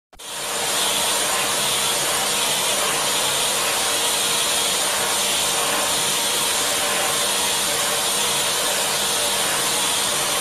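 A steady, even rushing hiss that starts abruptly just after the beginning and holds unchanged, with a faint steady hum beneath it.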